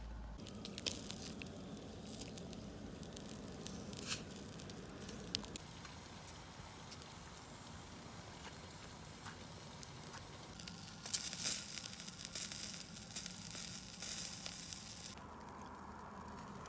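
Crackling of a wood fire, with food sizzling over it. Irregular clicks and pops throughout, growing into a louder, denser stretch of hissing crackle from about eleven to fifteen seconds in.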